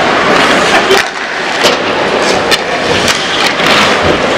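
Ice hockey skates scraping across the ice over a steady wash of rink noise, with several sharp clacks of sticks and puck.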